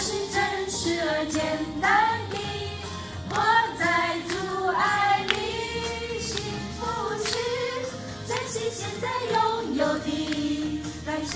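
A group of women singing a song together, with music under the voices.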